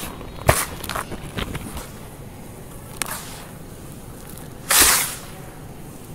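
Dry, crumbly charcoal-and-sand mix crunching and dropping into a tub: a sharp crunch about half a second in, a few small crackles, then a louder rushing pour of grains and clumps landing about five seconds in.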